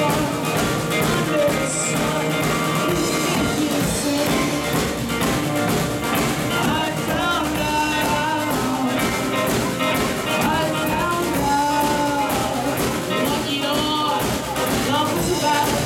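Live rock band playing: electric guitars and a Ludwig drum kit, with a lead voice singing a wavering melody over them, clearest in the second half.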